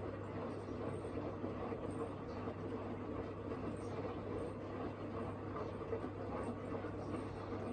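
Hoover H-Wash 700 washing machine running the main wash of its 90° drum clean programme: a steady low hum with an even rushing noise over it.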